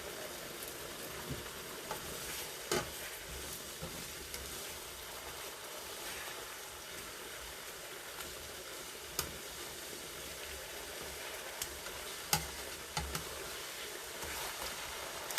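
Chicken adobo's soy-and-vinegar sauce sizzling steadily in a pot on high heat as it reduces and thickens, with a few sharp pops and spatters now and then.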